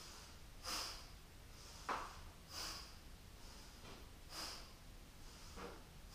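A woman's faint, audible breaths, about five short hissing breaths in and out, paced to a seated side-to-side yoga twist.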